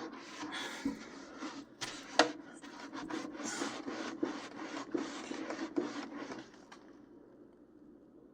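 Repeated rubbing strokes of a hand wiping baked-on grease off a toaster oven surface, about two or three strokes a second, with a sharp knock about two seconds in. The wiping stops about seven seconds in.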